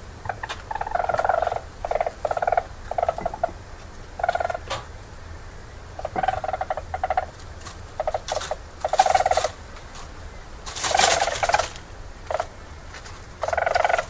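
Weasel calling during a mating attempt: the male's rapid pulsed trills come in short bursts of about half a second to a second with pauses between. About eleven seconds in there is one louder, harsher call that reaches much higher, fitting the female's scream in response.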